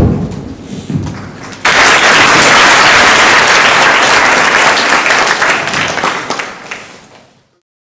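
Audience applauding, starting abruptly about two seconds in and fading out near the end. A brief low thump at the very start.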